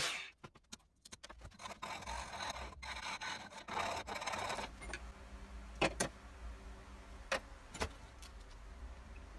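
A flat metal tool scraping and rattling in a fresh saw cut through a laminated bow limb, worked by hand for a few seconds. After it come about four short sharp knocks, with a low hum underneath.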